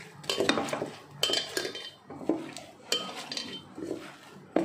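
Hand squeezing and mashing a soft mixture of bread and chopped vegetables in a stainless steel bowl: irregular squelching and knocking, with a few short metallic rings from the bowl.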